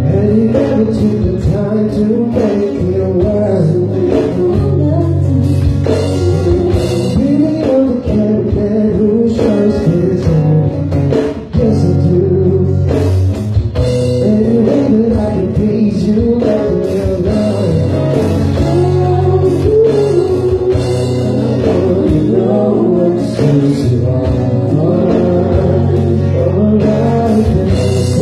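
Live band music: a man singing over guitar, a bass line and drums with a steady beat.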